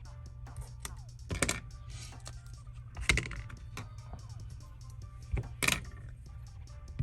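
Background music playing, with short loud bursts of handling noise on the workbench about a second and a half, three seconds and five and a half seconds in.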